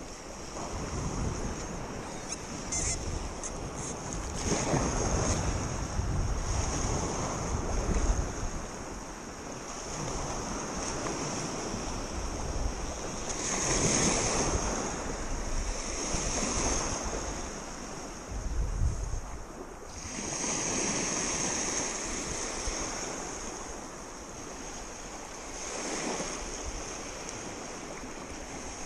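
Choppy lake waves lapping and splashing around a wading angler, swelling and easing every few seconds, with wind buffeting the microphone.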